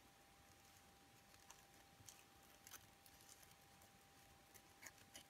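Near silence, with a few faint soft clicks and rustles of a satin and brocade ribbon bow being handled and wrapped in the fingers, over a faint steady tone.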